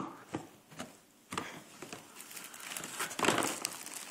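Plastic zip-top bags crinkling and rustling as a dog roots through them with its nose in a plastic storage tub. There is a sharp click at the start and a few more in the first second and a half, and the crinkling is loudest about three seconds in.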